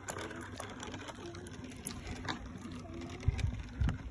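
Child's bicycle with training wheels rolling over asphalt, its wheels and frame giving a light rattling with scattered faint ticks. Low rumbling comes in near the end.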